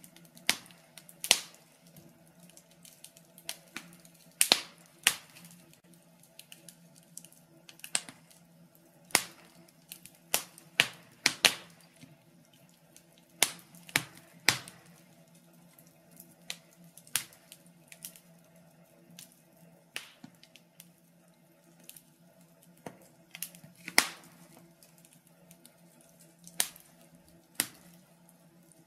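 Wood fire crackling in a stove: irregular sharp snaps at uneven intervals, some much louder than others, over a steady low hum.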